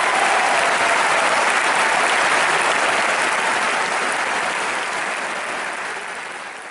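Concert audience applauding, a dense steady clapping that fades away over the last couple of seconds.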